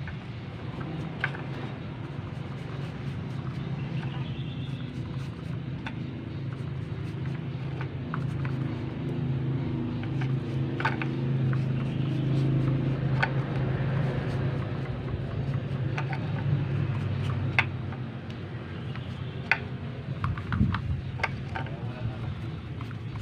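A motor vehicle engine running with a low steady hum. It swells toward the middle and eases off later, with scattered sharp clicks and taps over it.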